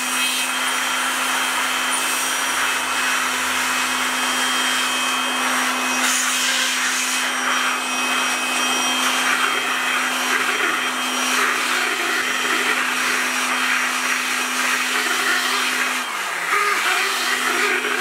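Electric handheld air blower running steadily, blowing leftover toner out of a laser printer toner cartridge's waste-toner hopper. About two seconds before the end its motor briefly slows and then speeds back up.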